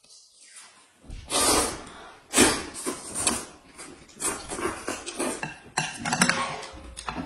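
Noodles slurped loudly in repeated bursts, mixed with clicks of chopsticks against bowls and dishes; it starts about a second in.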